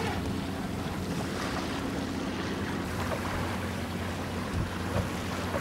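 Steady wind buffeting the microphone over water washing along the hull of a traditional Tagus sailing boat under way.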